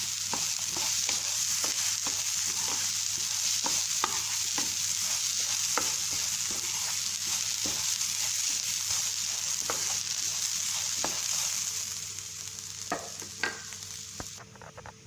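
Grated coconut roasting in hot coconut oil in a pan, with a steady sizzle and a spatula stirring and scraping with irregular clicks. The sizzle dies down over the last few seconds.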